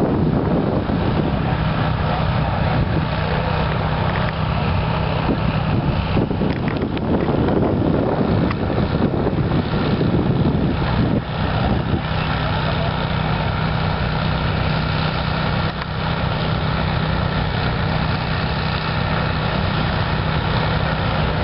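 A heavy vehicle engine running steadily, a low even drone.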